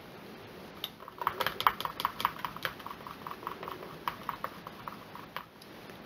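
Wooden craft stick stirring gold mica into cold-process soap batter in a plastic measuring cup, clicking and tapping against the cup's sides in a quick, uneven run that starts about a second in and stops shortly before the end.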